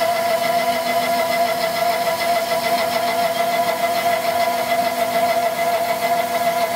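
A 4-inch side milling cutter on a Tormach PCNC 1100 CNC mill slotting an aluminum block: a steady, even whine with several overtones over the noise of the cut.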